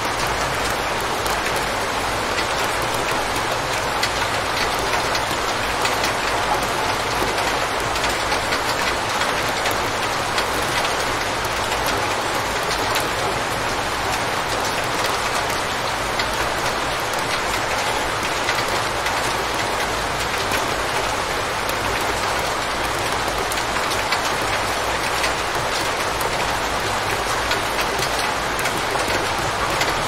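Steady rain falling: an even, unbroken hiss with faint ticks of single drops scattered through it.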